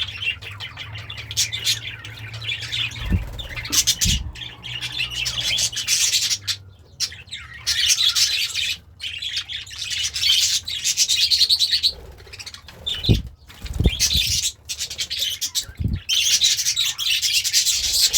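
Pet budgerigar chattering and chirping in a rapid, continuous warble, broken by a few short pauses. A few dull low thumps come in between.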